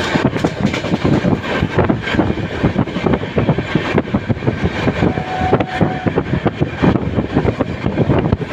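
Indian Railways LHB passenger coach running over the track: a steady rumble of wheels on rail, thick with dense irregular rattles and knocks.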